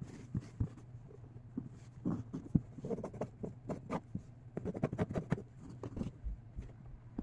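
Hands smoothing and pressing bandana fabric flat on a tabletop: soft, irregular rustling and scratching strokes with small taps, over a steady low hum.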